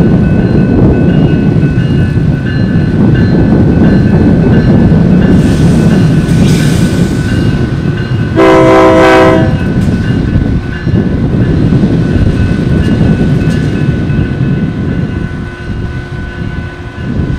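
Diesel switch locomotive engine running close by as it crosses a road, with the grade-crossing bell ringing in an even repeating beat. About eight seconds in, the locomotive sounds one short horn blast of about a second.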